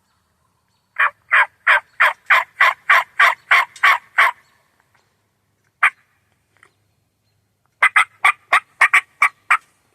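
Loud series of turkey yelps at about three a second: a run of about eleven, one single yelp, then a run of about eight near the end.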